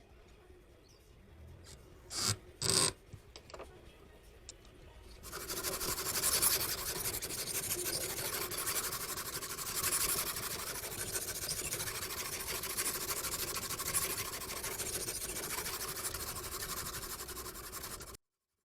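Two sharp knocks, then a knife blade rasping steadily against a diamond sharpening stone for about thirteen seconds before the sound cuts off suddenly.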